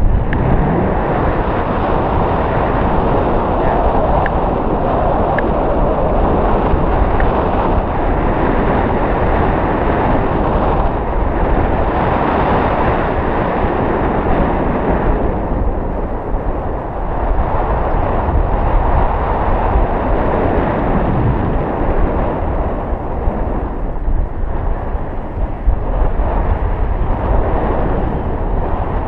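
Wind rushing over the microphone of a tandem paraglider in flight: a loud, steady rushing noise that swells and eases slightly.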